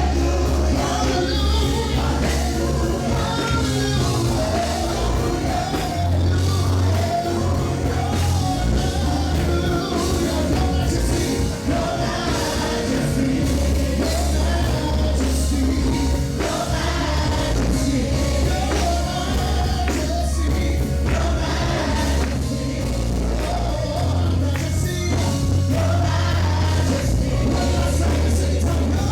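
Live gospel praise band playing at full volume, with a bass line moving under steady drums and voices singing over the top.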